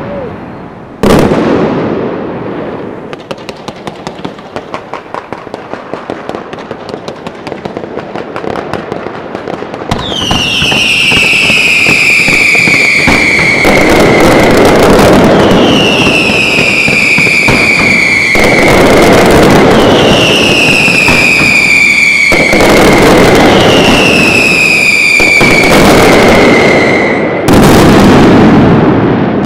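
Valencian fireworks display: a sharp bang about a second in, then a run of rapid crackling pops. Then comes a dense, loud, continuous rush of bursts with four long whistles over it, each falling in pitch over about three seconds, and a hard blast near the end.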